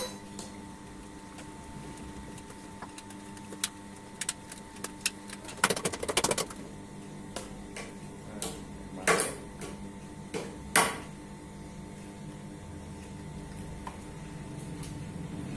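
Hard plastic tricycle parts being handled and pushed together: scattered clicks and knocks, a burst of rapid clicking a little before the middle, and two louder clatters later on. A faint steady hum runs underneath.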